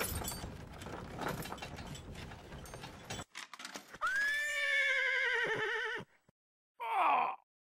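Horse sound effects: hoofbeats clip-clopping with a rattling noise for about three seconds, a few sharp clicks, then a long, wavering horse whinny about four seconds in, and a short falling cry near the end.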